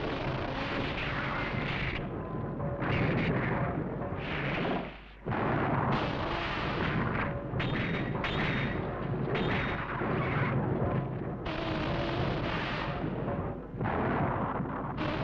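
A rapid series of film explosion sound effects, a new blast about every second, as the monster is bombarded.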